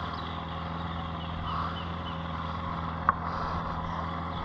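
Steady low hum of a distant motor, made of several steady tones, with a few faint short chirps above it. A single sharp click about three seconds in.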